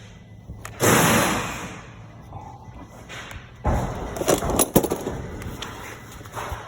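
Clatter and knocks of tools and brake parts being handled: a loud clatter about a second in, then a run of sharp knocks around the middle.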